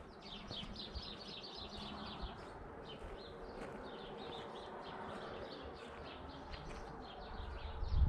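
Many small birds chirping in quick, overlapping calls over a faint steady background hum. A low rumble rises at the very end.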